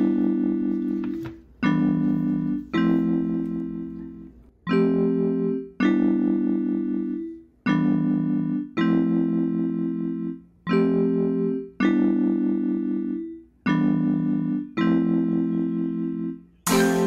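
Background music: slow keyboard chords, struck in pairs about a second apart with a longer pause after each pair, each chord ringing on and fading.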